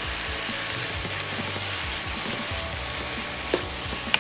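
Chopped pork heart, liver, lungs and pork cubes frying in oil in a pan, sizzling steadily, with two sharp clacks of a utensil against the pan near the end.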